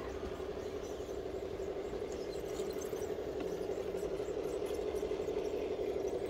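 Electric motor and gearbox of a radio-controlled rock crawler whining at one steady pitch as it crawls along, growing slowly louder.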